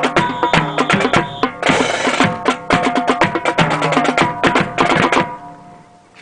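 Drum cadence accompanying a marching rifle drill: rapid drum strokes with ringing drum tones, a short crash about two seconds in, then the playing stops about five seconds in.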